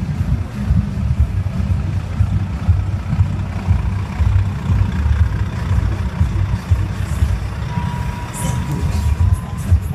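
Heavy low rumble of a Volvo FH truck's diesel engine as the lorry crawls past close by, towing a parade float.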